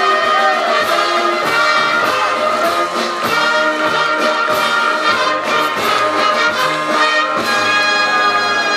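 Outdoor concert band playing a brass-led tune, with sousaphone bass notes under trumpets and trombones and a steady beat of about two strokes a second.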